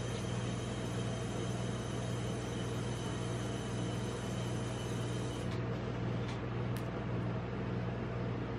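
Steady hum of a rolled-ice-cream cold plate's refrigeration unit running, with a few faint light clicks about five to seven seconds in.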